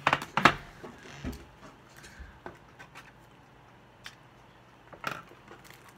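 Scattered light clicks and taps of a metal Pokémon card tin and its packaging being handled, with a few sharper knocks in the first half second and faint isolated taps after.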